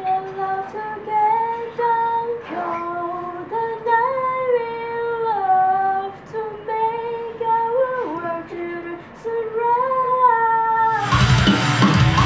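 A woman singing a slow melody alone into a studio microphone, with long held notes that step from pitch to pitch. About eleven seconds in, a loud band with electric guitar and drums cuts in.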